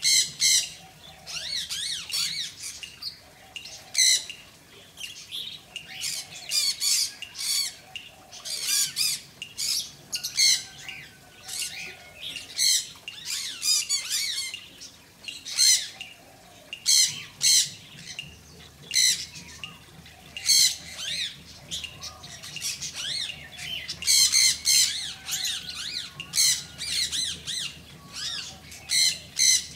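Pet birds squawking and chattering, a long run of short, high-pitched calls coming in uneven clusters.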